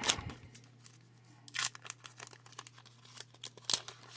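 Foil wrapper of a Pokémon card booster pack crinkling and tearing as it is opened by hand, with sharp crackles at the start, about a second and a half in, and near the end, and softer rustling between.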